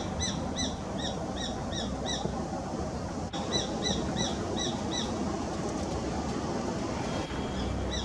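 Female Japanese sparrowhawk calling: a run of repeated high, sharp notes, about three a second, that stops after about two seconds, starts again about three and a half seconds in, and starts once more near the end.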